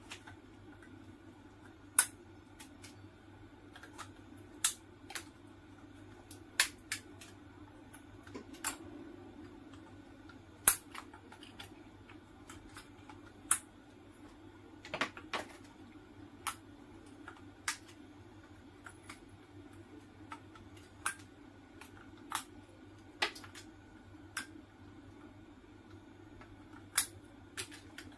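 Sharp, irregular metallic clicks and snaps, about twenty of them every second or two, as a hand tool levers and tears the welded nickel tabs off the lithium-ion cells inside a DeWalt power-tool battery pack's plastic case. A steady low hum runs underneath.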